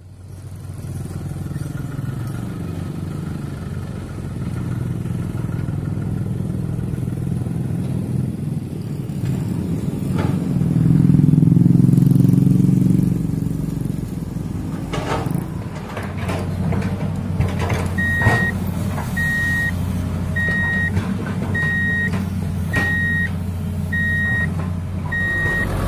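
Heavy diesel engines of dump trucks and a Hitachi excavator running at an earthmoving site, growing louder for a few seconds before the middle, with a few sharp metal knocks. From about two-thirds in, a dump truck's reversing alarm beeps steadily, about one beep a second.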